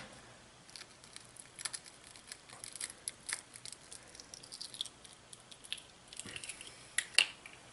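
A small bobwhite quail eggshell being cracked and picked apart by fingers: faint, scattered crackles and clicks, with a couple of sharper clicks near the end.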